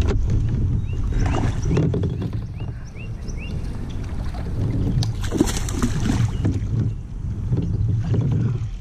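Wind rumbling on the microphone and handling noise aboard a fishing kayak while a hooked bass is fought. A run of short rising chirps comes about a second in, and a louder rushing noise around the middle.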